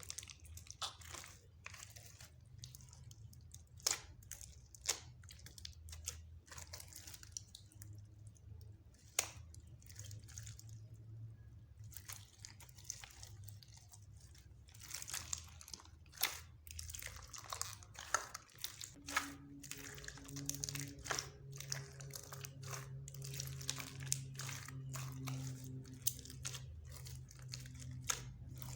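Slime being mixed and kneaded by hand, giving irregular sharp clicking and crackling pops. A low steady hum runs underneath.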